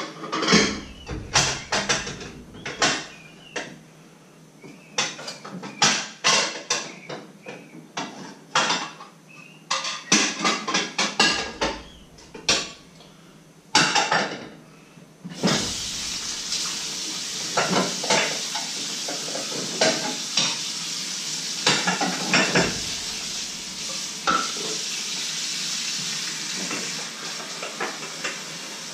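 Dishes and cutlery clattering and knocking together as they are washed in a kitchen sink. About halfway through, a steady rush of running tap water starts and the clatter carries on over it.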